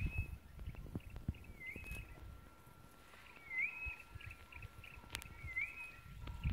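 A bird calling: a short whistled note that dips, rises and levels off, repeated about every two seconds, over a thin steady high tone. Faint rustling and crunching of elephants pulling up and chewing vegetation underneath, with one sharp click about five seconds in.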